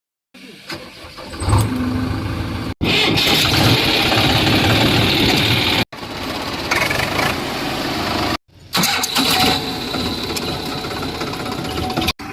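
Heavy diesel machinery engine running loudly, in several short clips cut together, each ending abruptly.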